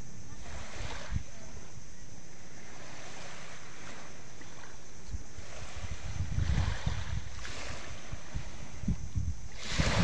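Small sea waves breaking and washing onto a pebbly shore in a steady hiss. The wash swells about a second in, again around six to seven seconds in, and is loudest near the end, with wind rumbling on the microphone.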